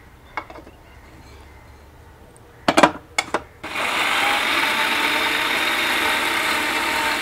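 Electric mixer grinder running steadily in a small steel jar, grinding roasted grated coconut and spices into a paste. A few knocks come just before the motor starts, a little under four seconds in.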